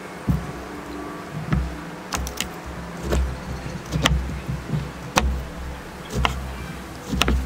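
Kitchen knife cutting through lemons and knocking on a plastic cutting board, one sharp chop about every second.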